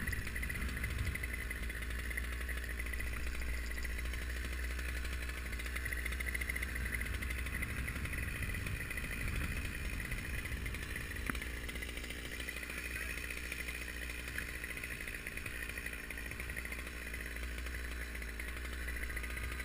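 An engine running steadily at an even pace, with a single sharp click about eleven seconds in.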